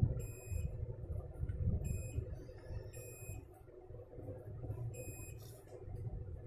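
Digital multimeter's continuity buzzer giving one steady high beep about a second long, near the middle, as the probes touch the motherboard. The beep signals near-zero resistance across the probed points, the sign of a short in the board's VRM section.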